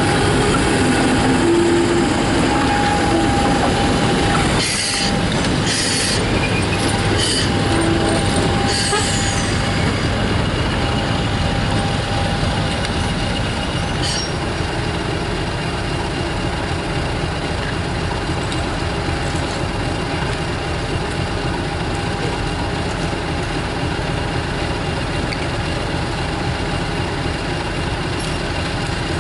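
British Rail Class 50 diesel locomotive, its English Electric V16 engine running with a steady drone as it moves slowly past and draws away. A few sharp clicks, likely wheels over rail joints, come about five to nine seconds in.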